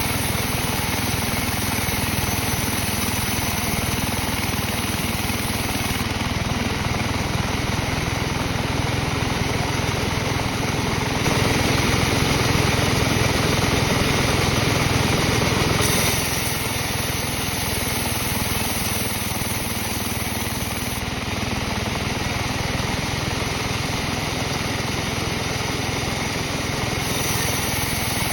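Sawmill machinery running steadily, its engine-like drone growing louder for about five seconds midway, then settling back.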